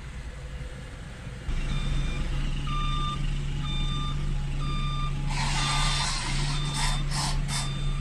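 A construction vehicle's reversing alarm beeps about once a second over a steady engine hum, starting about a second and a half in after a low rumble. Midway, a rush of hissing noise rises over it and ends in three short pulses.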